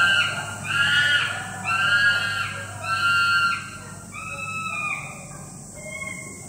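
Chimpanzee screaming: a run of high, rising-and-falling screams about one a second, loud for the first three and a half seconds, then a few weaker calls.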